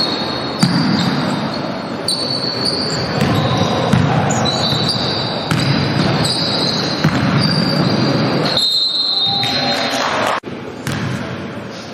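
A basketball being dribbled and bouncing on a wooden gym floor during play, with sharp knocks echoing in a large sports hall. The sound briefly cuts out about ten seconds in.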